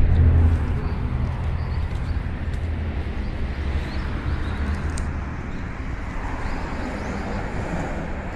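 A vehicle's low engine hum, loudest at the start and fading over the first few seconds, over steady outdoor traffic noise.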